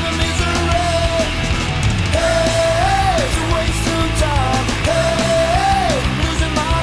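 Punk rock or heavy metal music with distorted guitars, drums and a sung vocal line holding long notes.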